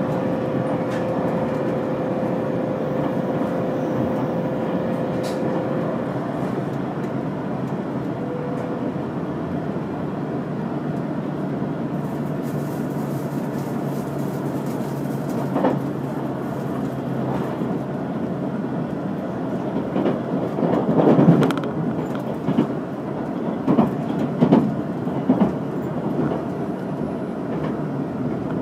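Limited express train running on the Yosan Line, heard from inside the passenger cabin as a steady rumble of wheels on rail. A thin steady whine fades out about six seconds in. In the last third, a run of sharp clacks comes as the wheels pass over the track.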